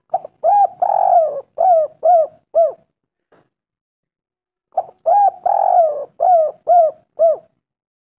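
Spotted dove (tekukur) cooing its song in two phrases of about six coos each, the second phrase starting about five seconds in. This is the kind of call used as a lure to set other tekukur calling.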